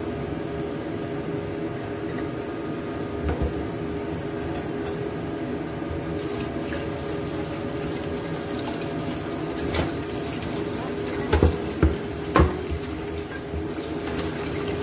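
Tap water running into a stainless-steel sink while a vegetable is rinsed, over a steady hum. Three sharp knocks on the steel counter about three-quarters of the way through, as a wooden cutting board and knife are set down.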